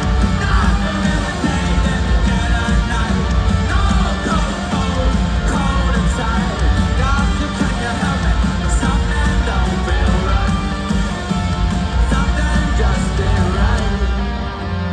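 Rock band playing live on electric guitars and drums with a singer, the full mix carrying through a large arena.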